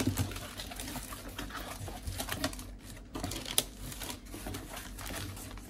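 Hands opening a cardboard box, folding back its flaps and handling the paper inside: irregular rustling and scraping with scattered light taps, the sharpest a little past halfway.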